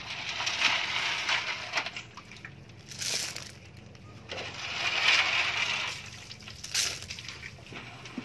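Wet river clam shells clattering and rustling against each other in a plastic basket. There are two long rushes of clicking, at the start and again about four seconds in, with a few sharper clacks between them.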